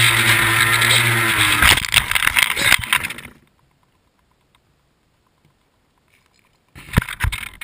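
Electric motor and propeller of an R/C foam plane whining over wind noise on the plane-mounted microphone, then easing off as the plane skids and scrapes to a stop on wood chips, after which it goes quiet. Near the end, crunching footsteps on wood chips right beside the plane.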